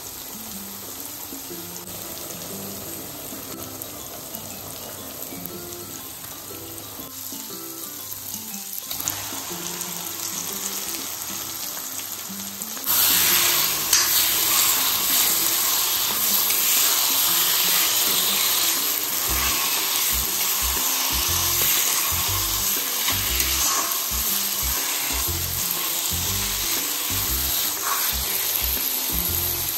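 Soft background music over a pan of curry cooking; about thirteen seconds in, a loud frying sizzle sets in and keeps going.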